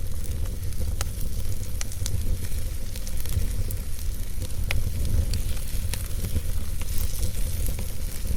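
Wood fire burning in a fireplace: a steady low rumble and hiss with scattered sharp crackles and pops from the logs.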